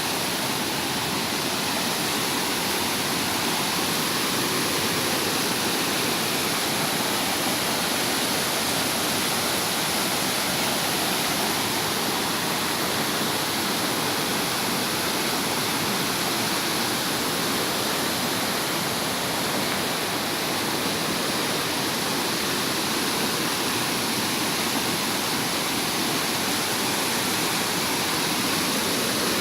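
Swollen, fast-flowing river water rushing steadily over rocks, a constant even rush.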